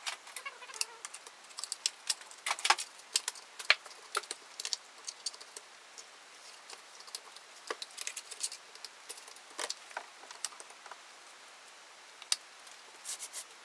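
Irregular light clicks and taps of hand tools and small metal parts being handled on a workbench during chainsaw reassembly.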